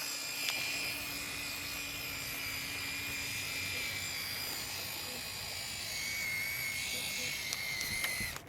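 Canon Rebel 2000's built-in film-transport motor whining steadily as it automatically winds the freshly loaded 35mm film once the back is closed. The pitch drops slightly about six seconds in, and the whine stops near the end.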